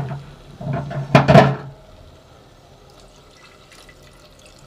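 Water poured into a clay handi of hot fried spice paste: a loud splash and sizzle about a second in that dies down quickly to a faint hiss with a few soft ticks.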